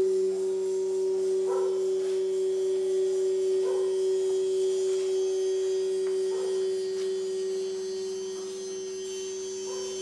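A sustained steady ringing tone from a percussion instrument, one held pitch with overtones and a slight waver in loudness, easing a little near the end. Faint soft rustles come every two or three seconds.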